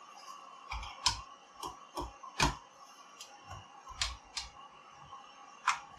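Parts of a Ubiquiti airFiber 60 LR radio unit clicking and knocking as they are fitted together by hand, with about nine sharp clicks at irregular intervals.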